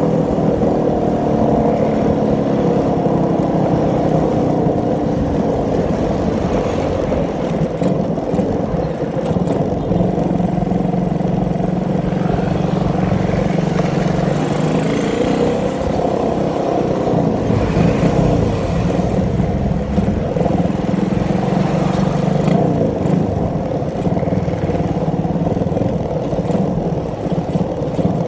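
Motorcycle engine running under way as it is ridden. Its pitch drops in the first couple of seconds and swings up and down again about halfway through as the throttle changes.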